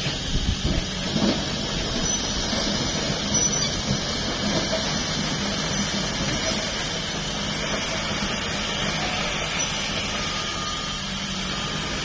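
Diesel engine of a Caterpillar single-drum soil compactor roller running steadily as it drives over loose earth, with a few low knocks in the first second and a half.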